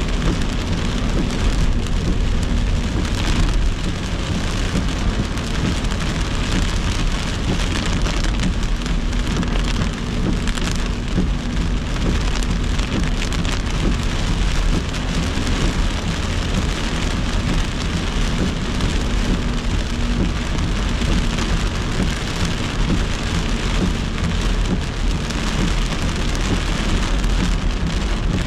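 Heavy rain beating steadily on a moving car's windshield and body, heard from inside the car, with low road noise beneath.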